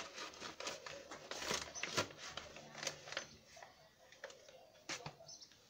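Light clicks and taps of a metal spoon against a stainless-steel saucepan, with cardboard packets being handled, as a spoonful of cornstarch is added. The taps come thick at first and thin out over the last couple of seconds.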